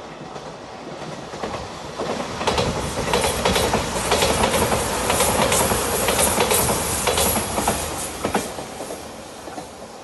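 Five-car Shiokaze electric limited express train running past close by, its wheels clicking over the rail joints. The noise builds about two seconds in, is loudest through the middle, and dies away near the end.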